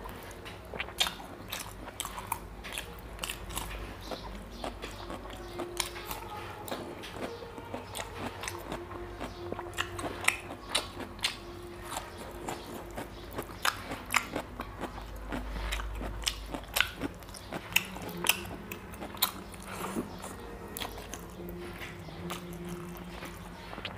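Close, wet chewing and lip-smacking of chicken curry and rice eaten by hand, a continual run of sharp mouth clicks and smacks.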